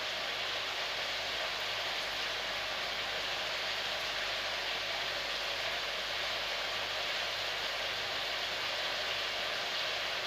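Chicken adobo simmering in a pan on the stove, making a steady, even hiss that does not change.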